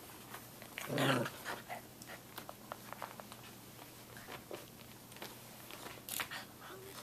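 Samoyed puppies at play: one short dog vocal sound about a second in, then scattered small clicks and taps of puppies chewing and mouthing toys, with a brief sharp noise a little after six seconds.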